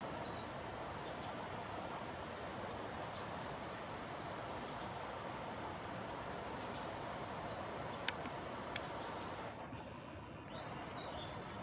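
Forest-floor ambience: a steady rushing background noise, with short high-pitched bird calls repeating every two seconds or so. Two sharp clicks come about eight and nine seconds in.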